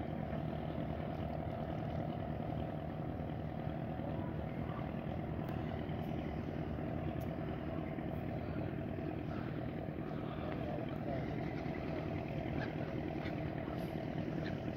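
A motor idling: a steady low engine rumble that neither rises nor falls.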